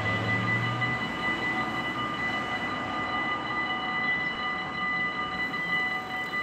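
Dutch level-crossing warning bells ringing continuously with several steady tones while the barriers are down, over the broad, steady rush of a passing train. A low hum stops about a second in.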